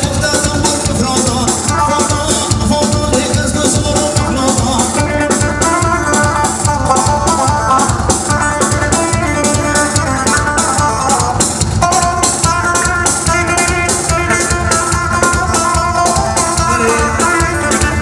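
Loud Kurdish wedding dance music from a band: a fast, steady drum beat under a running instrumental melody.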